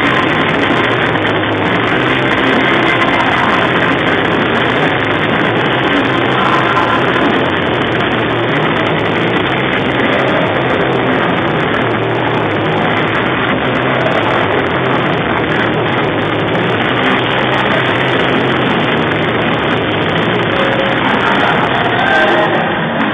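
Loud rock walkout music playing over an arena's PA system for a fighter's entrance, mixed with a large crowd cheering and shouting.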